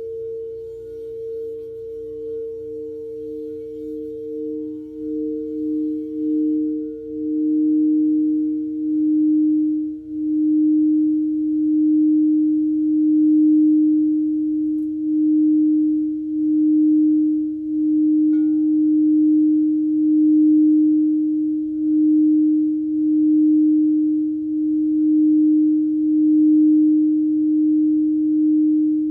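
Singing bowls ringing in sustained pure tones. A higher bowl fades away over the first several seconds while a lower bowl swells and holds, wavering with a slow, even pulse as it is kept sounding.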